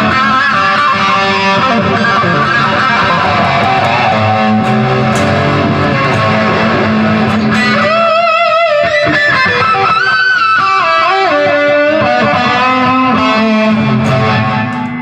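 Electric guitar played through a Hughes & Kettner Tubeman tube preamp pedal: chords strummed, then a single-note lead line with wide vibrato from about eight seconds in, and chords again near the end.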